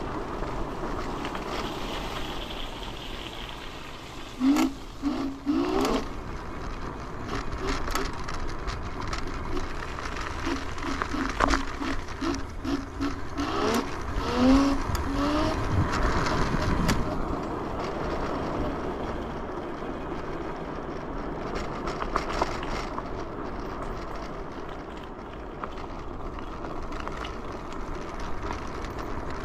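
Yugen RX11 electric scooter riding along a road: steady wind and road noise with a running hum around the mid range. A few short, rising pitched chirps come about five seconds in and again around eleven to fifteen seconds, with some brief louder knocks.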